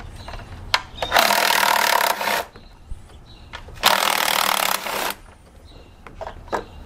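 Cordless impact driver hammering in two bursts of about a second each, breaking loose the 8 mm bolts of an upper intake manifold, with light clicks of the socket and extension in between.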